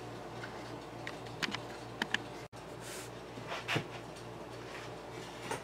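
Low steady hum with a few faint clicks and taps of small objects being handled on a workbench.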